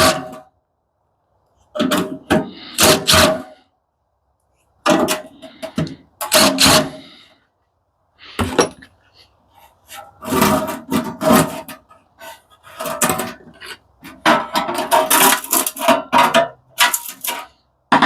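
Bursts of metallic clanking and rattling from metal parts of an industrial coffee machine's base being worked loose, the metal ringing at a fixed pitch, with short silent gaps between bursts.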